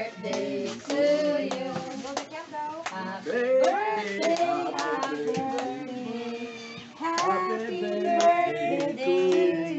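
Several voices singing together, with hand claps keeping time.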